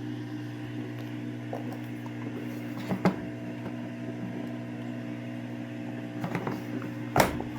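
Steady electric hum from a Samsung AddWash washing machine near the end of its cycle, in its anti-crease phase. A couple of short knocks come about three seconds in and near the end.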